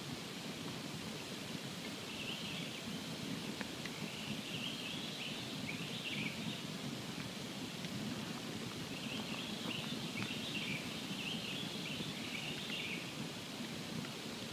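Campfire burning with a steady low rush and a few faint crackles. Two runs of high chirping calls sound over it, one early and one in the second half.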